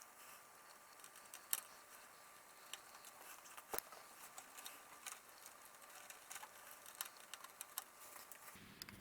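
Scattered light clicks and taps of computer parts being handled and fitted during a PC build, about a dozen of them, the sharpest about a second and a half in and just before four seconds.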